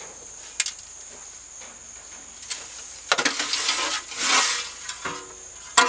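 A metal shovel scooping up straw and chicken litter and tipping it into a wheelbarrow. There are two rushes of scraping, rustling straw a little after halfway, and a few sharp knocks of the shovel.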